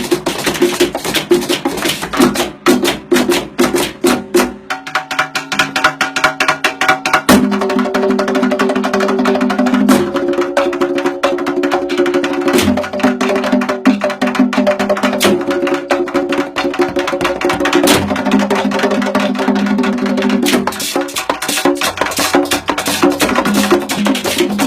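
Music with a fast, busy percussion beat of sharp wood-block-like clicks over sustained pitched chords. The beat thins out briefly about five seconds in and comes back in full at about seven seconds.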